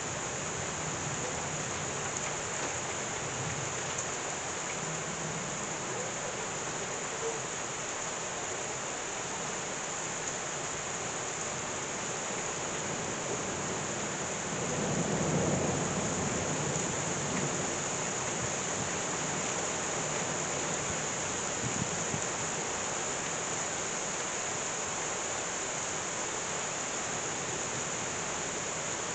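Heavy rain pouring steadily in a thunderstorm. About halfway through, a low rumble of thunder swells for a few seconds and fades.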